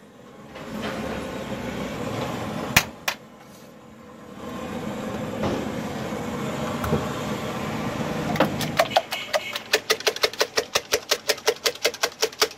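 Traffic rumble passing by, with a couple of sharp clicks. In the last three seconds comes a fast, even metallic tapping, about five taps a second.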